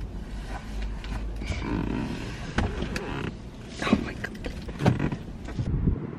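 Car seat and cabin trim creaking and rustling, with a few small knocks, as a person climbs over the centre console to the passenger seat.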